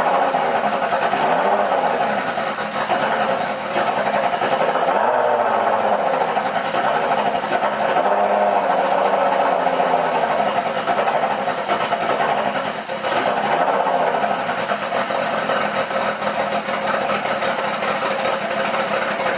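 Turbocharged Kawasaki ZX-6R's inline-four engine running on its first start-up after the turbo build. It runs steadily, with its pitch rising and falling a few times.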